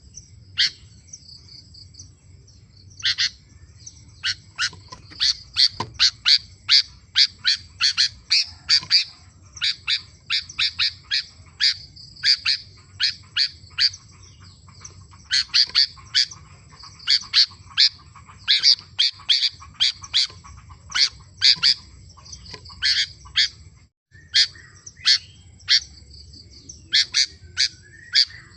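Sooty-headed bulbul (kutilang) singing busily: a long run of short, sharp chirping notes in quick succession, with a few short pauses.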